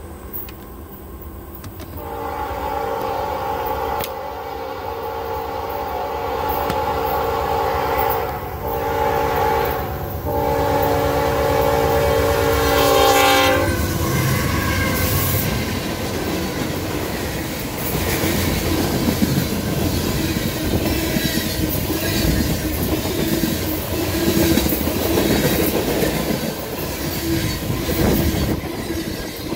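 CSX freight train's locomotive horn sounding three blasts, the first one long, as the train nears the road crossing, cutting off about 13 seconds in. The train then rushes past close by, its wheels clacking over the rail joints.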